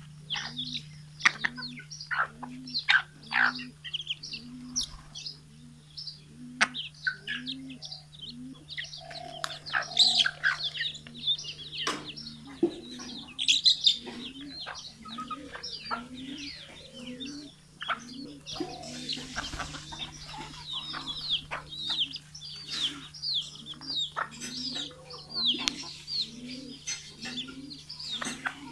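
A flock of hens and chicks calling: many high, short chick peeps and chirps over a hen's low cluck repeating about once a second, with a steady low hum underneath. A brief rustling noise comes about two-thirds of the way through.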